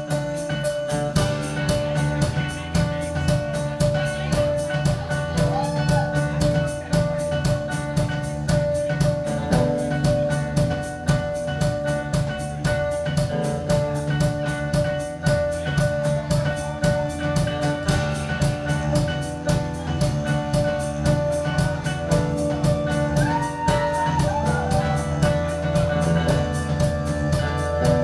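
A rock band playing live: electric guitar over a steady drum-kit beat and bass, with no vocals.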